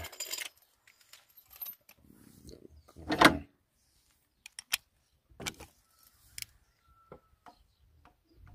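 Metal hand tools clinking and being handled, with one louder metallic clank about three seconds in and a few sharp clicks after it.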